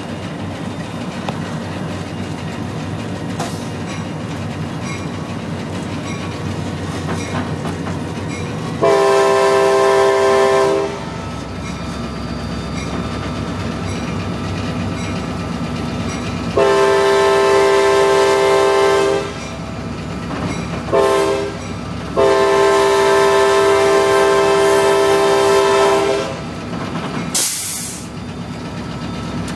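Multi-chime air horn of an EMD GP-series diesel locomotive, heard from inside the cab, blowing two long blasts, a short one and a final long one: the long-long-short-long signal for a grade crossing. The locomotive's diesel engine drones steadily underneath, and a short hiss follows the last blast.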